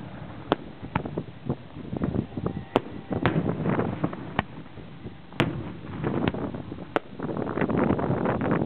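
Aerial fireworks bursting: separate sharp bangs and cracks about once a second, with a denser crackling run near the end.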